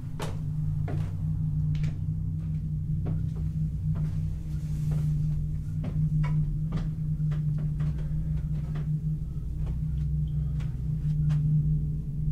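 A steady low drone, with irregular sharp knocks and creaks scattered over it, a few a second.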